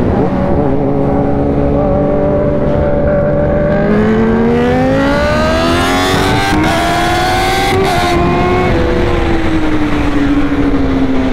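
Superbike engine in a highway roll-on drag race: it holds a steady note at first, then climbs in pitch for about four seconds under full throttle, with two brief breaks partway up, and falls away as the throttle is rolled off. Wind rush throughout.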